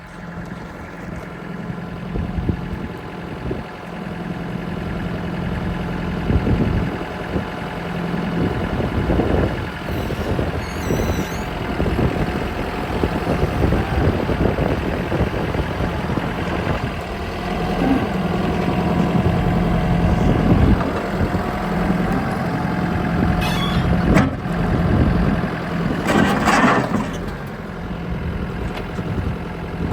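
Cat 420E backhoe loader's diesel engine running, its level rising and falling as the front loader arm and bucket are worked through their hydraulic functions.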